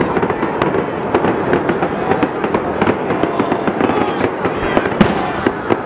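Fireworks salute bursting: a dense run of bangs over continuous crackling, with one especially loud bang about five seconds in.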